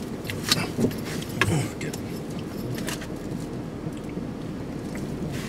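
Steady low hum inside a car's cabin, with a few sharp clicks and a brief voice murmur in the first two seconds.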